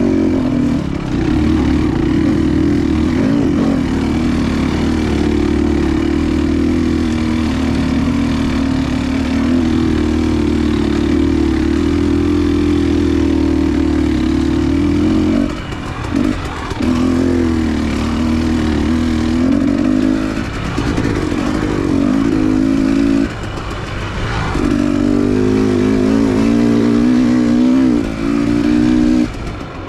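Dirt bike engine running under throttle, steady for about fifteen seconds. It then drops off and picks up again several times as the throttle closes and reopens, with the revs rising and falling near the end.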